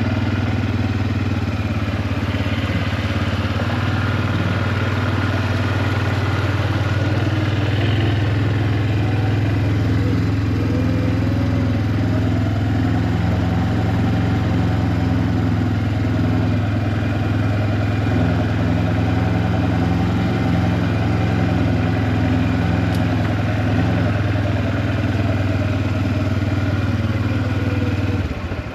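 A small vehicle engine running steadily, as on a ride, with slight rises and falls in pitch around the middle.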